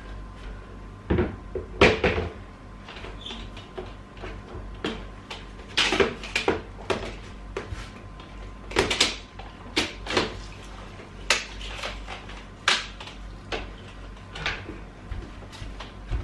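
Mop being worked over wooden floorboards: irregular knocks, bumps and scrapes, a second or more apart.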